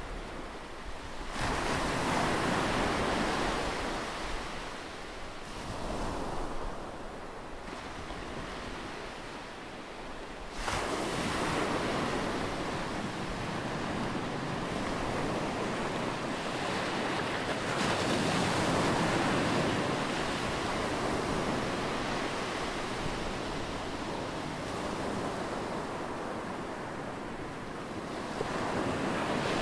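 Rushing surf noise that swells and recedes every few seconds, with a sudden rise about ten seconds in.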